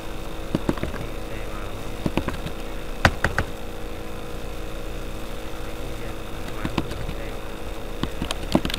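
Scattered sharp clicks and taps from a computer mouse and keyboard, some single and some in quick pairs or triples, over a steady background hum.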